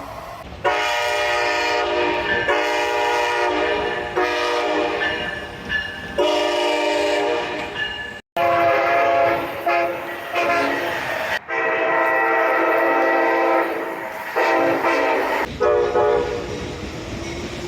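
Amtrak train air horns sounding chords of several tones. The first blasts go long, long, short, long, the grade-crossing signal; after an abrupt cut a series of further horn blasts follows, broken by another cut.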